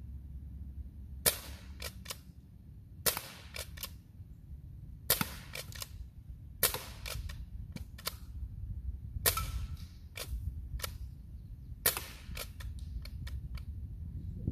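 Crosman 622 CO2-powered .22 pump-action pellet rifle fired six times, a sharp crack about every two seconds, each followed by a few fainter clicks.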